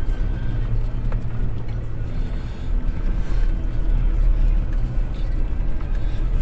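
Car engine running at low speed with a steady low rumble, with occasional light knocks and rattles as the car drives over a rough, rocky dirt track.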